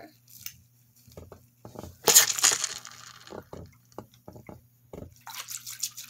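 Homemade water-filled balloon squeezed in the hands: the water sloshes and squishes against the rubber in short crackles. A louder squish comes about two seconds in and another near the end.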